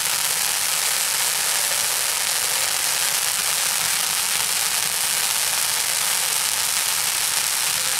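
A row of ground-fountain fireworks spraying sparks with a steady, even hiss.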